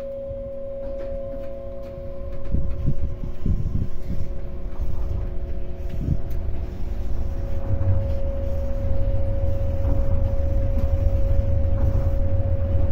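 Electric commuter train running, heard from inside the carriage: a low rumble that swells after a couple of seconds and again later, under a steady hum, with a few knocks in the first half.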